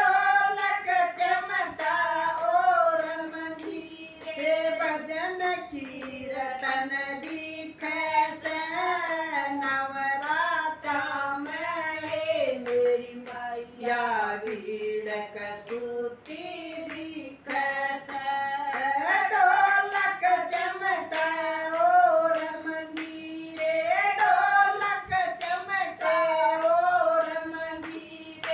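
Women singing a Haryanvi devotional bhajan together, with no instruments, their hand claps keeping the beat as sharp clicks under the melody.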